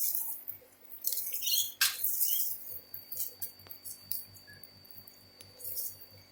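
Soil being dug through by hand in a potato container: irregular scratchy rustling and scraping in short bursts, with a sharp click about two seconds in.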